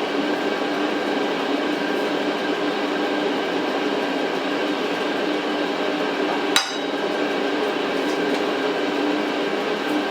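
A steady droning hum with a few held tones, broken by one sharp, ringing clink about six and a half seconds in.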